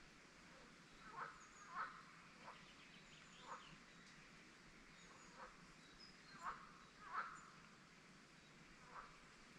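Short animal calls, about eight, repeating at uneven intervals, with faint thin high bird chirps behind them in a quiet lakeside forest background.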